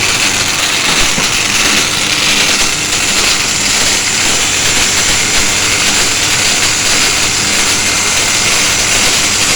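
Electric angle grinder running continuously at speed, with holes drilled into its housing: a steady, loud high-pitched whine and hiss that holds without change.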